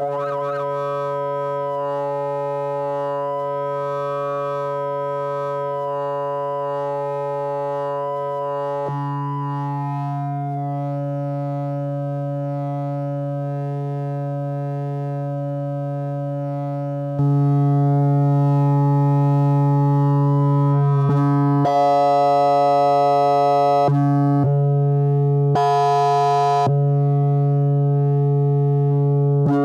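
Double Knot v3 synthesizer playing a sustained, continuous tone, its oscillators synced to a 5-volt square wave from a function generator, the sound changing in timbre as the knobs are turned. The tone changes character about nine seconds in, gets louder around seventeen seconds, and twice turns much brighter for a second or two in the last third.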